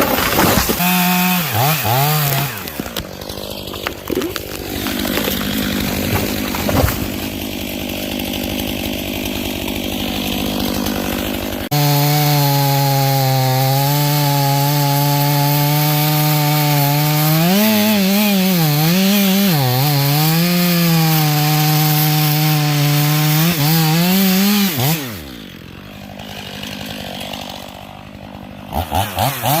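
Two-stroke chainsaw running at high revs and cutting wood, its engine note dipping and rising as the bar is loaded. About 25 seconds in it drops to idle, then revs up again near the end.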